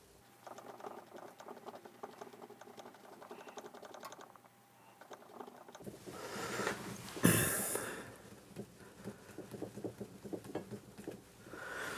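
Light, irregular clicking and tapping of metal engine parts being handled while heated bearings are fitted onto a crankshaft, with one louder clatter about seven seconds in.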